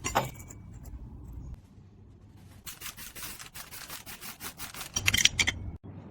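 Metal-on-metal work on a pair of tin snips: a run of quick scraping strokes, then a cluster of sharp metallic clicks near the end.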